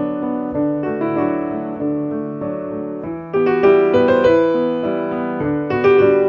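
Slow piano music with sustained notes and chords, louder attacks about three seconds in and again near the end: the instrumental introduction to a ballad.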